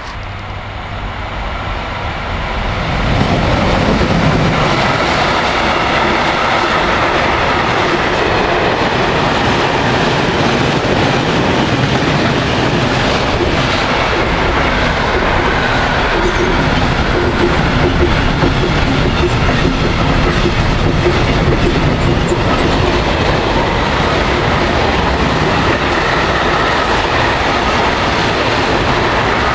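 A train running past at close range: the sound builds over the first three seconds as it arrives, then holds loud and steady as the wagons roll by.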